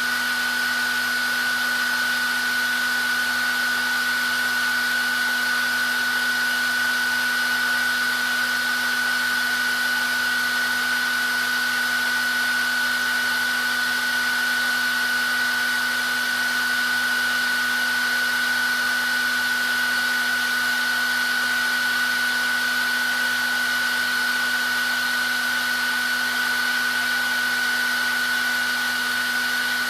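Electric hair dryer running steadily: an even rush of blown air with a constant high whine from its motor and fan and a lower steady hum.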